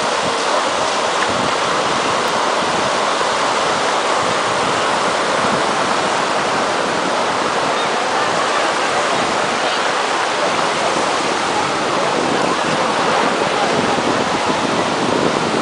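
Steady rushing noise of sea water, mixed with wind on the microphone.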